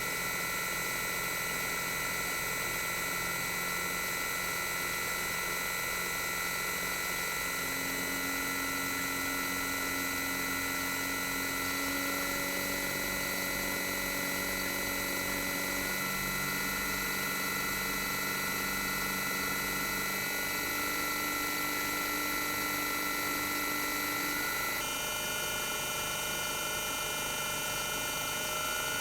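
Toshiba twin rotary inverter compressor of a 1998 RAS-285LADR mini-split outdoor unit running bare, without its sound-absorbing wrap. It gives a steady hum under several high whine tones. The lower tones step in pitch now and then, and the high whine changes pitch about 25 seconds in.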